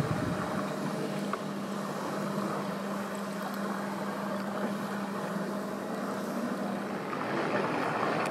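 Steady low hum of a small boat motor over outdoor wind and water noise; the hum stops about seven seconds in.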